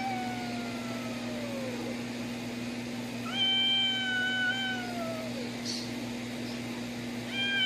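A cat's long, drawn-out yowls at a dog, each sliding down in pitch as it ends: one fades out about two seconds in, a second runs from about three to five seconds, and a third begins near the end. A steady low hum runs underneath.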